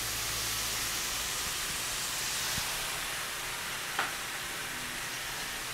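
Caper brine sizzling in hot butter and oil in a stainless-steel sauté pan: a steady hiss, with a small pop about four seconds in.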